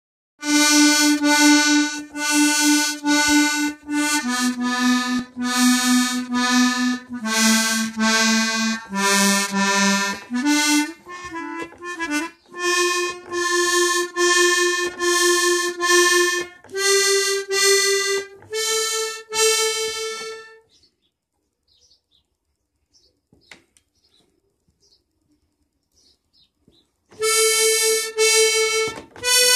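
Accordion reeds sounded one at a time during tuning: single steady reedy notes held a second or two each. The notes step down in pitch for about ten seconds, then climb, and after a pause of about six seconds near the end two more notes sound.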